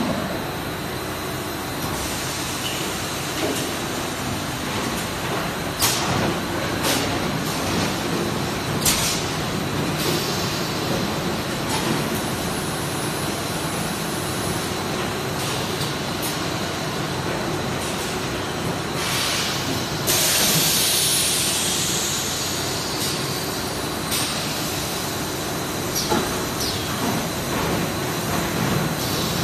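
JWZ-BM 12D blow molding machine running with a steady mechanical hum and a few sharp clunks. About twenty seconds in comes a loud hiss of air lasting a few seconds.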